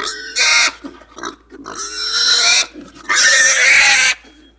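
Pig calling: three loud, rough squealing grunts, the last lasting about a second.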